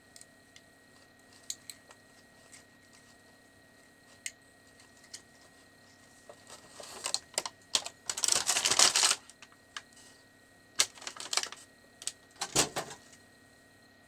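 Toy packaging being handled and opened: scattered light clicks and taps, then a burst of rustling and crinkling a little past halfway, followed by more clicks and scrapes.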